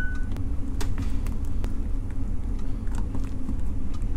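Steady low background hum with a few faint small clicks as a precision screwdriver works the tiny caseback screws of a digital watch.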